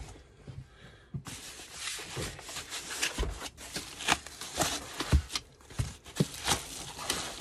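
Foam packing blocks and a plastic bag rustling and rubbing as a battery is unpacked by hand, with scattered light knocks of the packaging against the bench. Quiet for about the first second, then steady handling noise.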